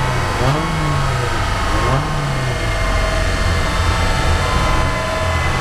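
Renault Clio 1.8 16V's four-cylinder engine with an aftermarket exhaust and headers, revving in quick rises and falls for the first couple of seconds, then running at steady high revs.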